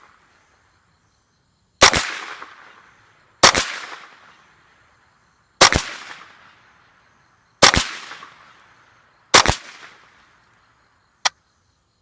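Ruger 10/22 Takedown .22 LR rifle fired five times at a steady pace, roughly two seconds apart, each sharp crack trailing off in a second-long echo. A faint click follows near the end.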